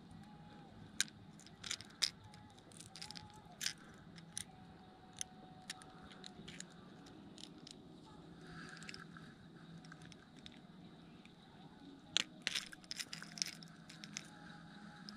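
Hands handling fishing tackle: scattered sharp clicks and small scrapes, with a cluster of louder clicks near the end, over a faint steady low hum.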